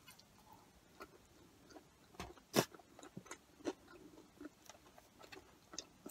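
Close-up chewing and wet mouth smacks as a person eats soft, cheese-covered curly fries, with scattered small clicks. The loudest click comes about two and a half seconds in.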